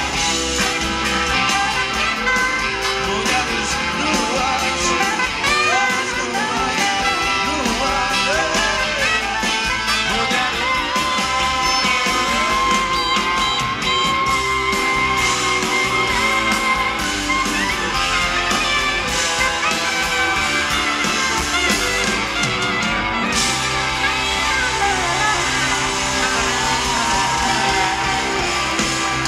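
Live pop-rock band playing, with electric guitar and drums, loud and steady.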